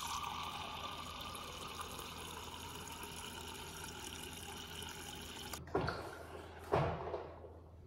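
A refrigerator door water dispenser runs water into a glass with a steady pour that cuts off abruptly about five and a half seconds in. Two thumps follow.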